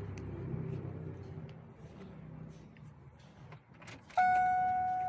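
Faint low hum and a few light clicks, then, about four seconds in, a steady electronic warning tone comes on from the van's dashboard as the ignition is switched on and slowly fades.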